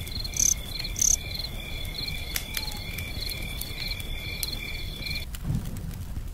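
Insects chirping in a steady chorus, pulsing about twice a second over a high continuous trill, with two short higher chirps about half a second and a second in. The chorus cuts off abruptly about five seconds in, followed by a dull thud.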